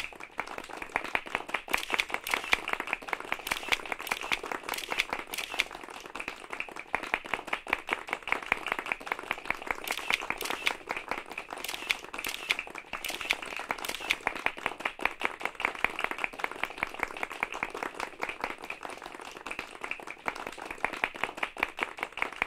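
A crowd clapping: a long round of applause, steady and dense throughout.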